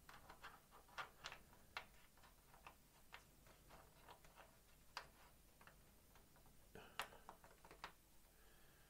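Faint, irregular clicks and taps of styrene plastic model parts knocking together as the nose piece is test-fitted to a 1/32 scale He 111 kit fuselage, the loudest click about seven seconds in.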